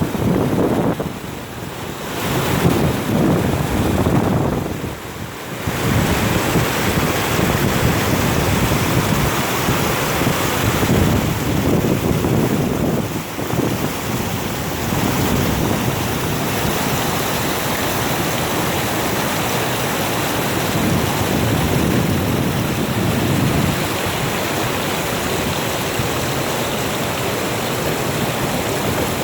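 Swollen river water rushing loudly and continuously, running high and strong after a night of heavy rain, with brief dips in level about a second in and around five seconds in.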